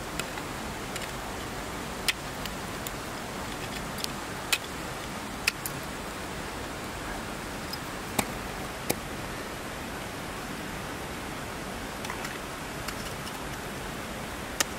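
Ice axes and crampons striking a frozen waterfall: a handful of sharp knocks, irregularly spaced a second or more apart, over a steady hiss.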